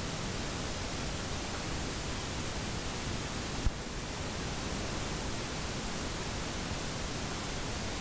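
Steady, even hiss, with one brief low thump about three and a half seconds in.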